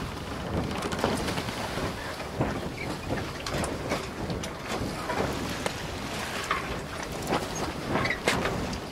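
Water rushing and splashing against the hull of a boat under way, with wind. A steady rush broken by frequent short, irregular splashes.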